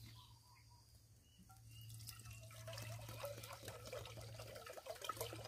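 Water poured from a plastic bottle into a metal cooking pot hanging over a campfire. The pour starts about two seconds in and gets louder.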